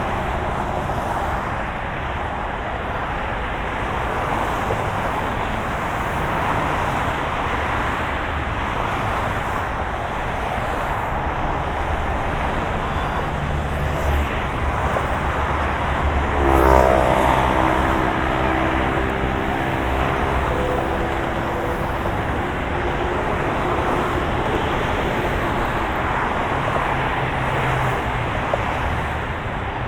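Continuous road traffic noise with cars going by. About halfway through, one vehicle passes close and loud, its engine note dropping in pitch as it goes past, then holding steady for a few seconds.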